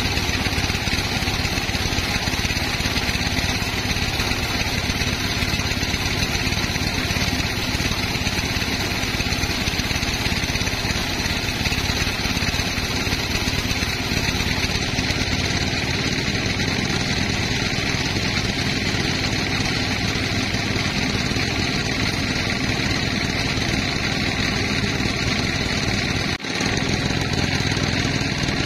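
Sawmill machinery running steadily, a continuous loud engine-and-saw drone, with a brief dropout near the end.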